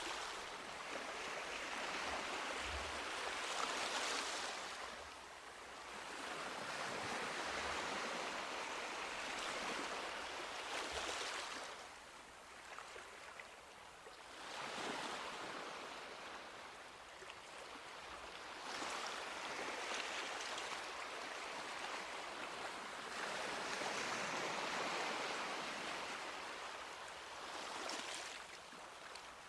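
Small sea waves breaking and washing up a sandy beach, the surf swelling and ebbing every four to six seconds.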